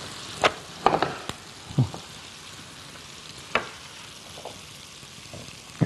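Sliced red onions sizzling in a frying pan as they soften, with a few sharp clicks of a wooden spatula against the pan.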